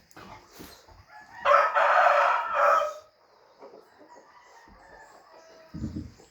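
A rooster crowing once, a harsh call of about a second and a half starting about a second and a half in. A low thump follows near the end.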